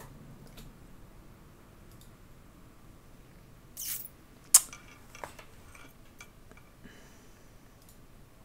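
Handling noise at a desk: a few faint clicks, a short rustle about four seconds in, then one sharp, loud click, with a couple of softer clicks after it.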